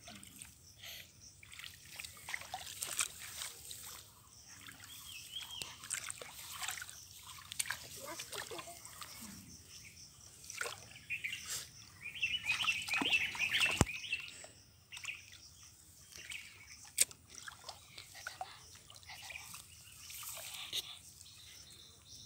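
Hands splashing and sloshing in shallow muddy water: irregular small splashes and trickles, with a louder stretch of splashing about twelve to fourteen seconds in.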